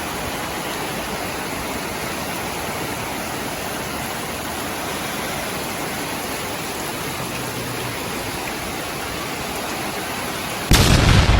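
Heavy rain falling steadily. Near the end, a sudden loud boom cuts in.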